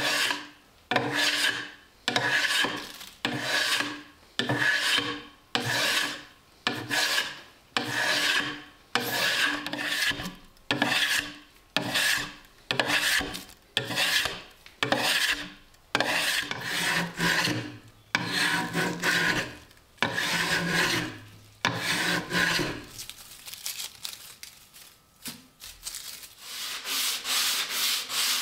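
A wooden axe-handle blank clamped in a vise being shaped by hand, with one scraping stroke about every second, each starting sharply and fading. Past the middle the strokes stop, and near the end quicker, lighter rubbing strokes follow.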